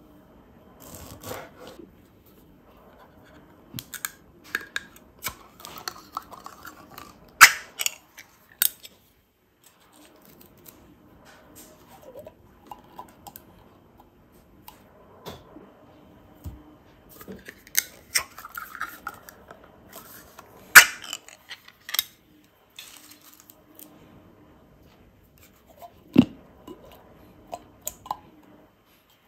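Kitchen prep handling: a serrated knife cutting calamansi on a plastic cutting board, then canned sardines being tipped from the can into a ceramic bowl. Scattered sharp clicks and knocks with quieter handling in between; the loudest come about a quarter of the way in and again about two-thirds in.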